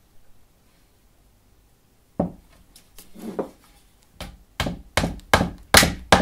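Small metal-headed hammer tapping a glued oak wedge down into a crack in solid oak wood. After a couple of scattered knocks, a steady run of taps starts about four seconds in, between two and three a second, each louder than the last.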